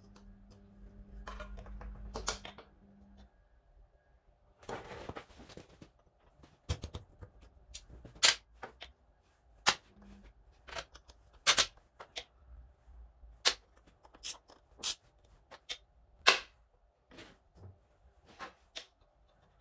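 Irregular sharp clicks and knocks of hand work on a motorcycle's rear wheel, chain and chain adjusters, about fifteen of them, scattered unevenly.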